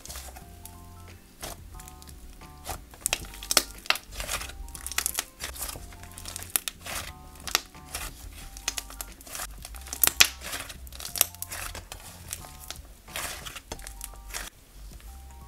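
Thick white slime being pressed, folded and squeezed by hand, giving an irregular run of sharp crackling clicks and pops, thickest in the middle.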